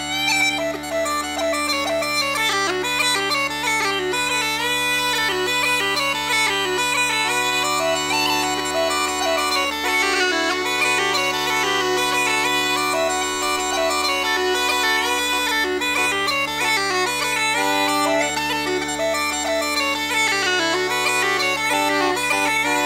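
Uilleann pipes, a D set, playing a reel in B minor: a fast, ornamented chanter melody over steady drones.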